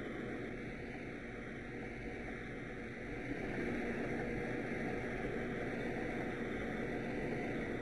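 Steady background rumble and hiss with no distinct events, a little louder from about three seconds in.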